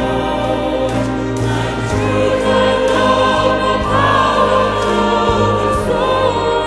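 A choir singing a Christian worship song, with held, slightly wavering notes over a steady bass accompaniment.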